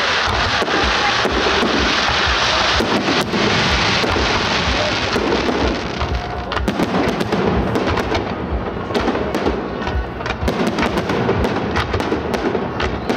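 Fireworks display: a dense hissing crackle from fountain effects for the first half, then many sharp cracks and bangs of bursting aerial shells.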